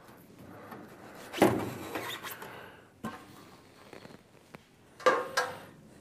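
Metal top cover of an electric heater being taken off: a sharp clank about a second and a half in, light scraping and handling, and another clatter with a short ring about five seconds in.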